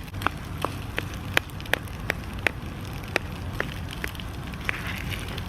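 Rice frying in oil in a non-stick pan over a methylated-spirit burner, giving irregular sharp pops and crackles, about two a second, over a low steady rumble.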